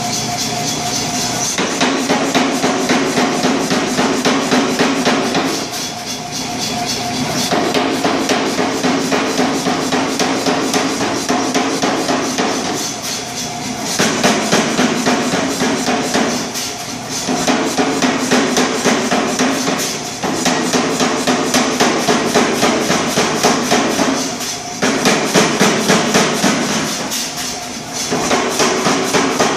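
100 lb Reiter air-powered forging hammer pounding a hot 1045 steel bar in fast runs of blows, with short breaks every few seconds.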